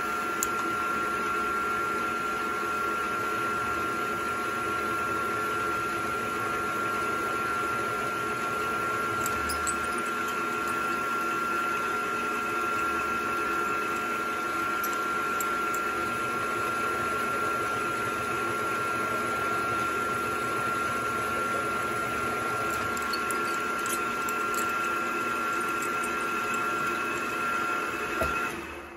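Milling machine spindle running at constant speed, a steady high motor whine over lower hum, turning a center drill that chamfers a 60-degree countersink into a hole in billet aluminum. A few faint clicks; the sound cuts off abruptly at the very end.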